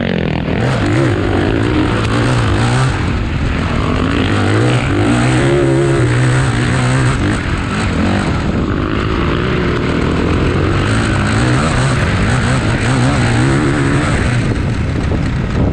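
Several motocross dirt bikes' engines racing, revving up and down with the throttle and gear changes, more than one engine sounding at once.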